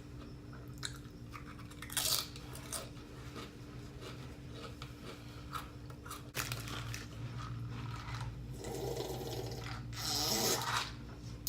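Eating sounds: chewing with scattered clicks and scrapes of a utensil or food container, louder briefly about two seconds in and again near the end, over a steady low hum.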